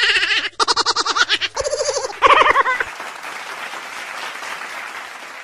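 Cartoon characters laughing in high voices, in quick ha-ha pulses for the first three seconds. Then a wash of applause that fades away.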